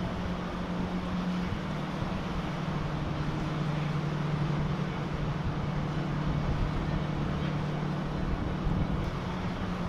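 Boat engine running with a steady low drone that steps down slightly in pitch about a second and a half in, over wind noise on the microphone.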